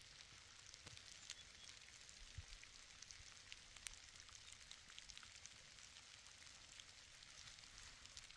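Faint rain: a steady soft hiss with many scattered drops ticking.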